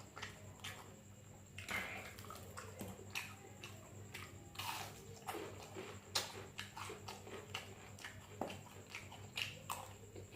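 Close-miked eating sounds of someone chewing sausage: irregular wet smacks and clicks of the mouth, over a faint steady hum.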